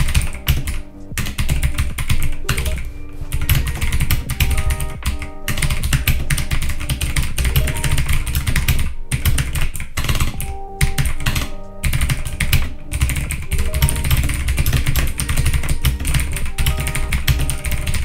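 Fast continuous typing on a DREVO Gramr 84-key mechanical keyboard with clicky MX Blue-style switches: a dense, rapid stream of key clicks with no pauses. Background music with a bass line plays underneath.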